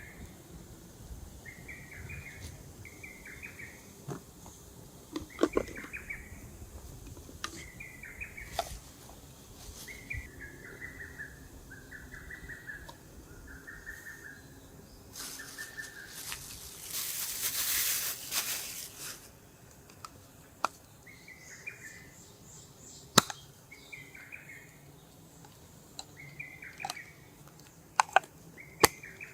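A bird calling over and over, one short note about every second. A few sharp clicks come in between, and a loud hiss lasts a few seconds about two-thirds of the way through.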